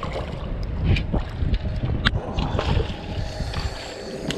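Hooked sheepshead splashing at the water's surface as it is reeled up beside a kayak, with wind buffeting the microphone and a few sharp clicks.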